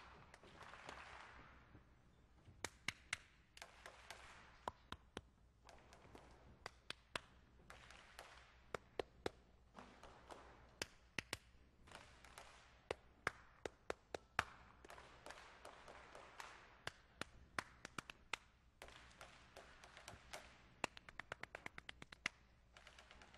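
Call-and-response hand clapping: one person claps short rhythmic patterns, sharp and close, and a crowd claps each pattern back as a softer spread of many hands.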